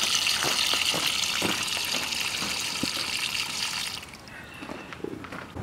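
Water gushing from a garden hose down into a PVC drain pipe through its access tee, flushing the pipe to clear a blockage; the steady rush drops away about four seconds in.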